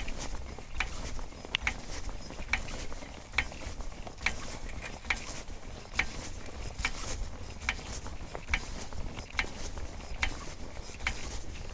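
A metal mechanism being worked by hand in steady strokes during a tire change, with a sharp click a little more than once a second, like a ratchet or a jack being cranked.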